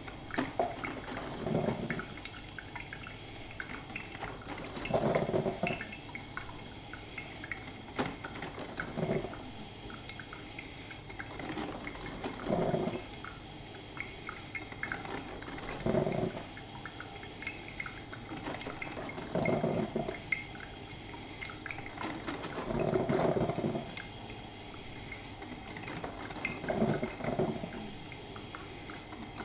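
Electric drip filter coffee machine brewing: a steady hiss with light dripping, broken by a gurgling spurt of hot water about every three and a half seconds.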